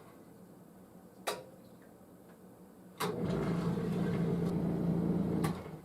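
A basement sump pump, set off by hand, starts with a click and its motor runs with a steady hum for about two and a half seconds while pumping out the pit, then cuts off near the end with a light knock. That shut-off knock is the water-hammer clunk the owner puts down to a faulty check valve, here not very loud.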